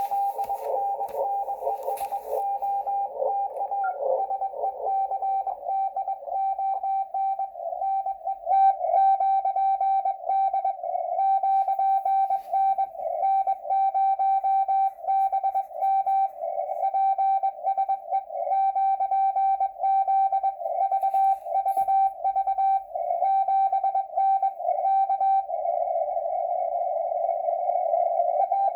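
Morse code (CW) on the amateur radio bands, heard through a shortwave receiver: a steady mid-pitched tone keyed in dots and dashes over band hiss. For the first few seconds weaker, blurred signals share the hiss, and near the end the keying stops, leaving the hiss alone.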